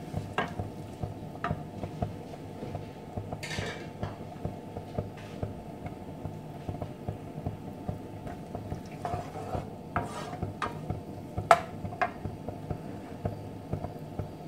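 Wooden spatula stirring chopped onions in oil in a nonstick frying pan: irregular scrapes, clicks and light knocks against the pan, one sharper knock near the end, over a steady low hum.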